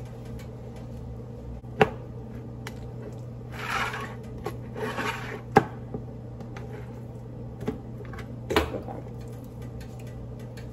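Food-prep handling at a metal baking pan: a few sharp knocks and clinks against the pan, and two short bursts of rustling about halfway through, over a steady low hum.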